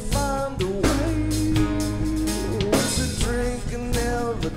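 Live rock band playing, with drum kit, bass and guitars under a male lead vocal that sings long held notes.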